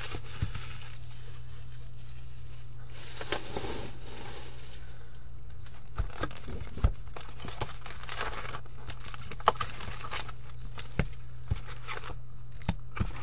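Plastic shrink-wrap crinkling and tearing as a sealed box of hockey trading cards is unwrapped and opened by hand, with a few sharp clicks and taps of cardboard. A steady low hum runs underneath.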